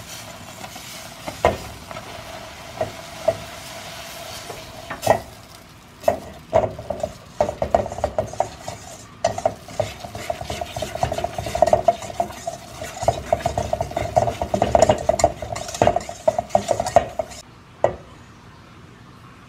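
Wire whisk stirring and scraping in a stainless steel bowl while flour is worked into hot butter and water to make choux dough, the metal bowl giving a ringing note. A few separate knocks at first, then rapid continuous stirring from about six seconds in, stopping shortly before the end.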